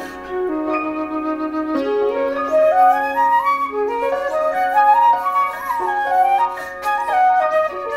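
Calm flute music: a melody climbing in quick stepwise runs over held lower notes.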